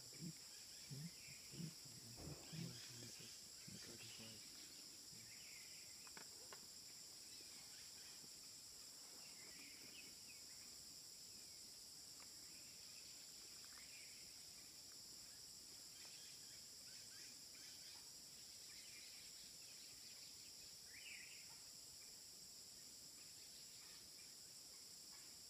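Faint, steady high-pitched drone of tropical forest insects in several held tones, with scattered faint chirps. A few short, soft low sounds come in the first three seconds.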